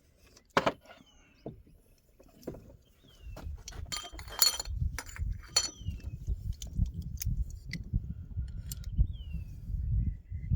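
Small carburetor parts clinking and tapping as they are handled, with a cluster of ringing metallic clinks about four to six seconds in. A bird gives short downward chirps several times, and a low rumble comes in a few seconds in.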